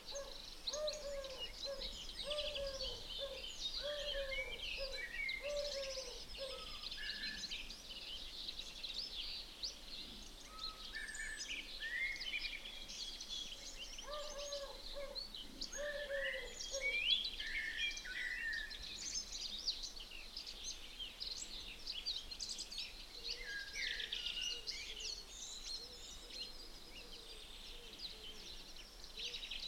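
Several birds singing together, a dense mix of high chirps and trills, with a lower call repeated as a quick series of notes at the start and again about halfway through.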